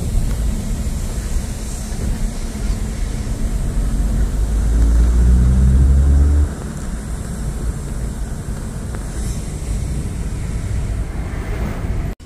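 Engine and road noise of a Suzuki hatchback heard from inside the cabin while driving. The engine note climbs in pitch for a few seconds about halfway through, then drops off suddenly to a steadier, quieter rumble.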